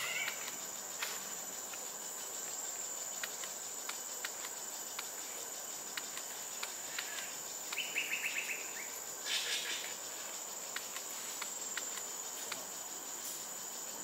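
Forest insects keeping up a steady high-pitched drone, with scattered faint clicks. About eight seconds in there is a short rapid trill, followed by a brief noisy burst.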